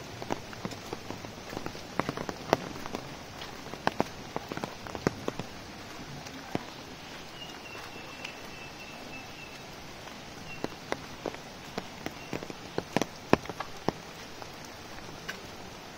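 Steady rain with many large drops striking close by in sharp, irregular taps that stand out above the hiss.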